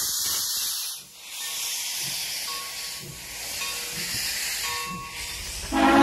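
Texas State Railroad No. 30 steam locomotive hissing steam, with faint regular exhaust chuffs underneath. Near the end its steam whistle starts blowing, loud and sounding several notes at once.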